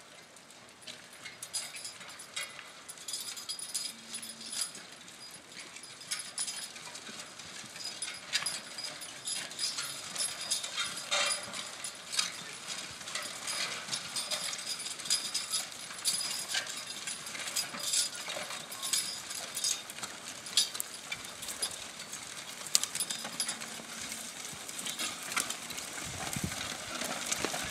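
Team of two draft horses pulling a steel disc harrow through plowed soil: hooves on soft ground, harness and chains clinking, and the discs rattling and scraping through the clods. It grows louder as the team comes closer.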